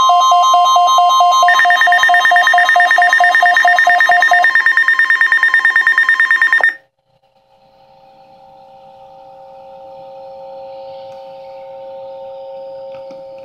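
Electronic emergency-alert tones: a steady tone near 1 kHz over a lower warbling tone, joined after about a second and a half by a higher tone pulsing rapidly. All of it cuts off abruptly about seven seconds in, leaving a faint steady hum of several tones.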